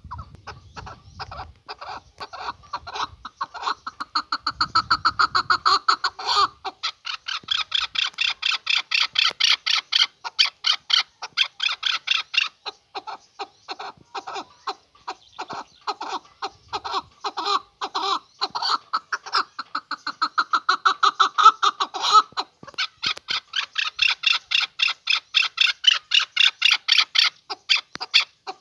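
Male chukar partridge calling: a long run of rapid, repeated clucking notes, several a second, rising into louder bouts and easing off between them.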